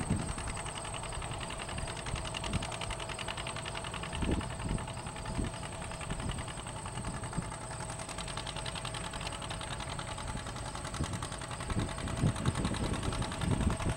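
Vintage John Deere two-cylinder tractor engine running at road speed with a fast, even putt-putt as the tractor approaches, growing a little louder near the end.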